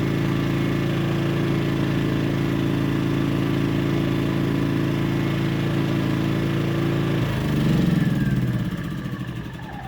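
Powerhorse 2300i inverter generator running steadily at low speed in economy mode. About seven seconds in the sound changes with a brief surge, then the engine winds down with a falling whine as it is shut off.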